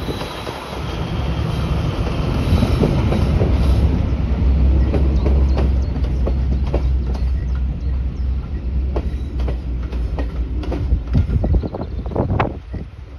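Diesel locomotive passing close by, its engine a deep steady drone that peaks early and then fades. The coaches follow, rattling past with irregular clicks of wheels over rail joints, and a faint thin squeal of wheels on the curve in the first few seconds.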